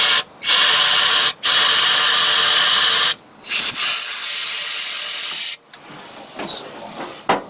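Compressed-air blowgun hissing in four blasts, the longest about two seconds, blown into the idle mixture screw ports of an Edelbrock four-barrel carburetor to clear plugged idle circuits and low-speed jets. A few small knocks and a sharp click follow near the end.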